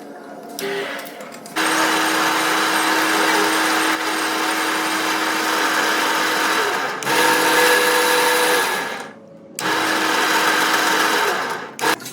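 An electric power tool runs at steady speed in three bursts: about five seconds, then two shorter runs, each cut off sharply, with short pauses between them.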